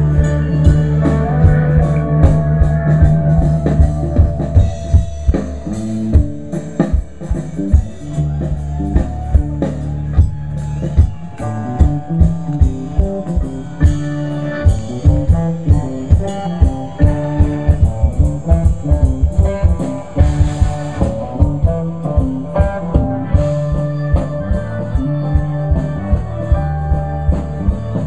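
Amplified band music through a PA speaker: guitar, bass and drum kit playing a steady beat, with the bass line stepping between notes.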